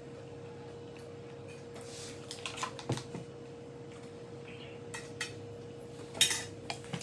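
Spoons and utensils clinking against bowls and cups during eating, in scattered short clinks, the loudest about six seconds in. A faint steady hum runs underneath.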